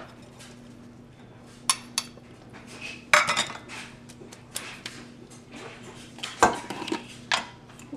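Stainless steel bowl and kitchen utensils clinking and knocking against a pan in a string of separate sharp strikes, the loudest about six and a half seconds in, over a faint steady low hum.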